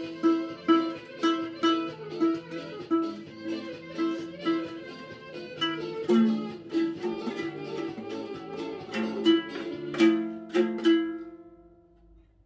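Ukulele music: clean plucked notes in a steady rhythm, about two a second, with a simple melody that fades out near the end.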